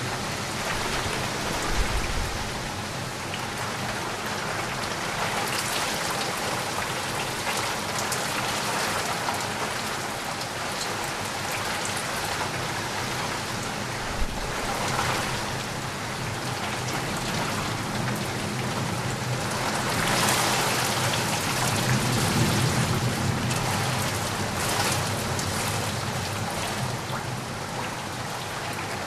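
Steady heavy rain falling and pattering on surfaces, swelling louder about two-thirds of the way through. Two brief low thumps come through the rain, one near the start and one about halfway.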